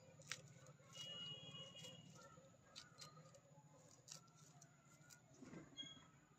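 Faint, scattered clicks of a small knife slicing green chillies held in the hand over a steel bowl.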